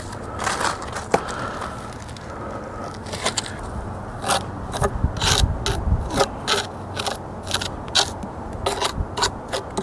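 A series of short scraping strokes on stone and mortar during chimney-cap masonry work, scattered at first and then coming about twice a second from around three seconds in.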